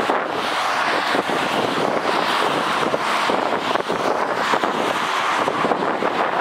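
Boeing 787-8's Rolls-Royce Trent 1000 turbofans spooled up for takeoff, a steady jet rush with no rise or fall, with wind buffeting the microphone.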